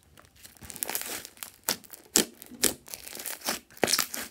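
Hands squeezing, folding and pulling apart glossy slime mixed with small foam beads. It gives off irregular sharp crackling pops and sticky squelches.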